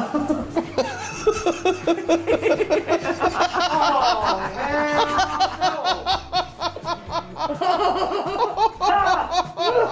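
A person laughing hard and without a break, in quick repeated bursts.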